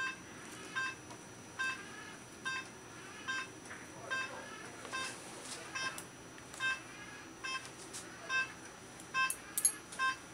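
Veterinary anaesthesia monitor beeping in time with the anaesthetised dog's pulse: short, even beeps a little over once a second, each made of several high notes sounding together.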